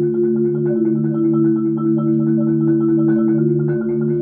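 Marimba (LV1200FC) played with four yarn mallets: low notes held steady by fast repeated strokes, with higher notes changing over them.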